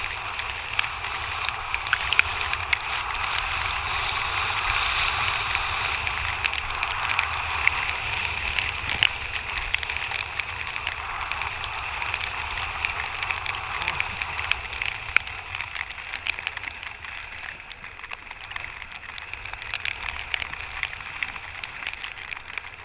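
Steady rush of water and wind past a kitesurf board riding choppy water, with scattered sharp ticks of spray and raindrops hitting the wet camera housing. It eases somewhat over the last few seconds.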